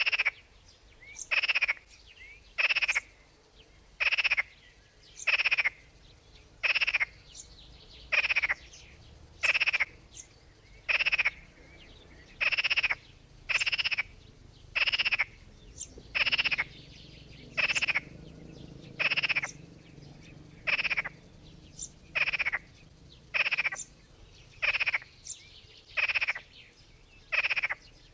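A frog croaking over and over in a steady rhythm, short rasping calls a little more than once a second.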